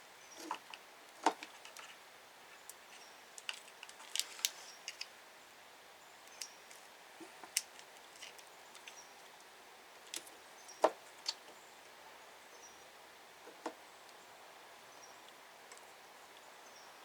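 Sparse small clicks and taps of hand tools and wiring being handled while a circuit is probed for a broken wire. The loudest tap comes about eleven seconds in.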